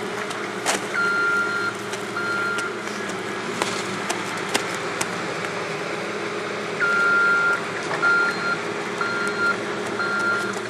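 A backup alarm on heavy equipment beeping, about half a second per beep: twice near the start, then four more a second apart in the latter half. Under the beeps a machine engine drones steadily, and there are a few sharp clicks.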